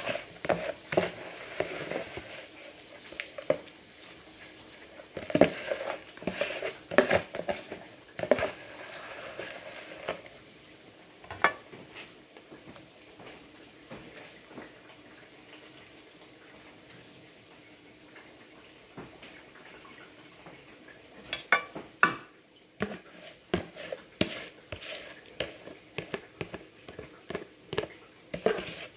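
A metal spoon stirring and scraping rice in a metal cooking pot, clinking against its sides in a busy run of knocks through the first ten seconds or so. After a quieter stretch the utensil knocks and clicks start again near the end.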